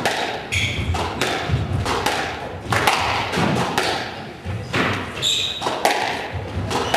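Squash rally: the ball is struck by rackets and smacks off the walls and floor in quick succession, each hit echoing in the court. Sneakers squeak briefly on the wooden floor about half a second in and again about five seconds in.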